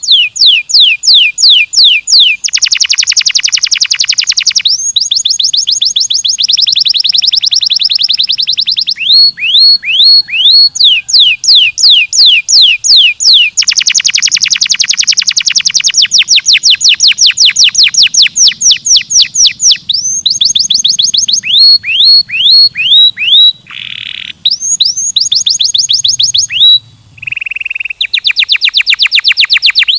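Domestic canary singing loudly in long tours: runs of rapidly repeated sweeping notes and fast rolling trills, changing phrase every few seconds, with a couple of brief breaks near the end.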